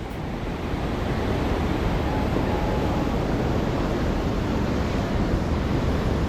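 Ocean surf washing on the beach as a steady rushing noise, with wind buffeting the microphone.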